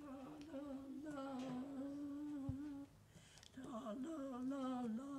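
An elderly woman humming a slow tune in long held notes, breaking off about three seconds in and then starting again.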